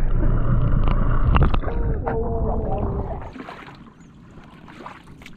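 Wind rumbling on the microphone in an open aluminium dinghy, with a few sharp clicks and knocks. It drops off abruptly about three seconds in, leaving a quiet stretch with a few faint ticks.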